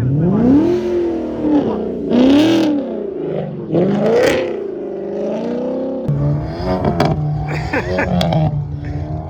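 Car engine revving, its pitch rising and falling several times, then settling to a steadier drone about six seconds in.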